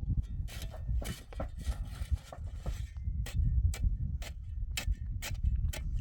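Repeated sharp knocks over a low rumble: irregular at first, then settling into a steady rhythm of about two a second from about halfway through.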